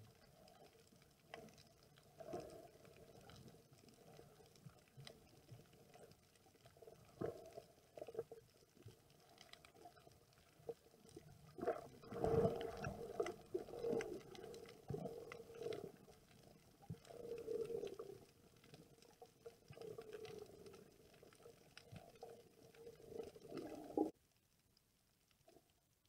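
Muffled underwater water noise recorded while snorkeling: irregular sloshing and gurgling with scattered faint clicks. It is loudest around the middle and cuts off suddenly near the end.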